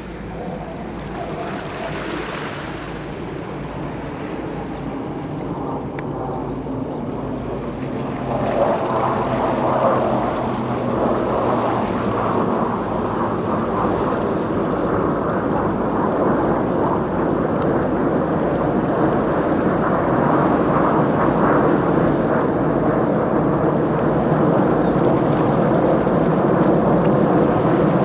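Distant military jet aircraft: a low rumble that grows steadily louder as they approach, with wind buffeting the microphone.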